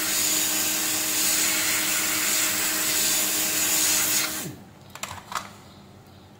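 Weller WR3M hot-air rework station blowing a steady hiss of hot air with a low hum, reflowing solder on the pins of an SMD IC. The airflow cuts off about four seconds in with a short falling tone, followed by two light clicks.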